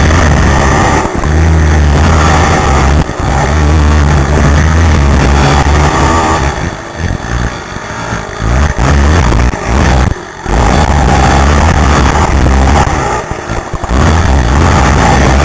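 Racing quad's engine run hard at full throttle, heard up close from the rider's helmet, loud and rough. The throttle is chopped briefly several times for corners and jumps, the longest cut about two-thirds of the way in, each time snapping straight back to full power.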